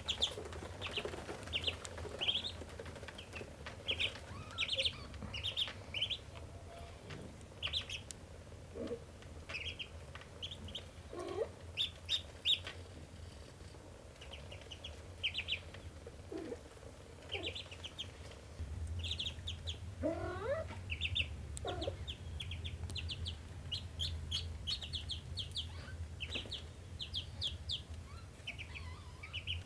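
Ducklings peeping almost nonstop in quick high-pitched runs, with a few lower sliding calls now and then over a steady low hum.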